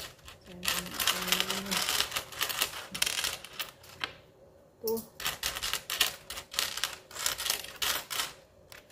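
Metal dirham coins clicking and clinking in quick runs as they are picked up, counted and stacked by hand. There is a pause of about a second near the middle.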